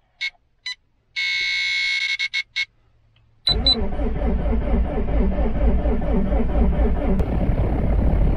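A few short electronic beeps and a dashboard chime, then, about three and a half seconds in, the starter motor cranks the 2006 Subaru WRX STI's rebuilt EJ25 flat-four, turning it over steadily and rhythmically without starting. The cranking is meant to prime the oil pump, and no oil pressure has built up yet.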